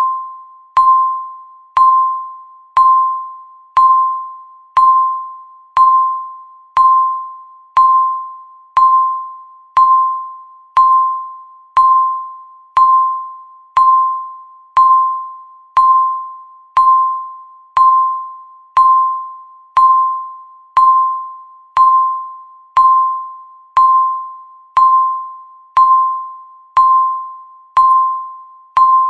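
Countdown timer beeping once a second: each beep is a single tone that starts sharply and fades away before the next.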